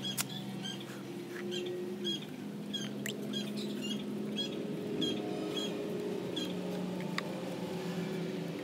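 Short, high-pitched chirps from a small animal, repeating irregularly one or two times a second over a steady low hum, with a few sharp clicks.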